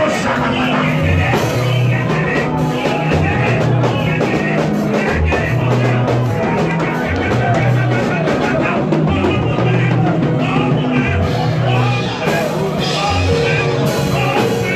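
Band music with drums and a pulsing bass line, steady and loud throughout, with some singing.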